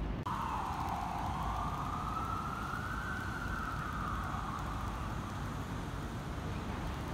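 An emergency-vehicle siren wailing: one slow sweep that dips, climbs and then sinks away again in pitch, over a steady low city rumble. It starts abruptly just after the start.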